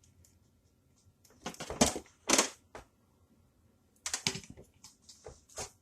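Plastic clicks and knocks from handling the air fryer's power plug and cord as it is plugged into the wall outlet, in two quick flurries of sharp clicks with a pause between.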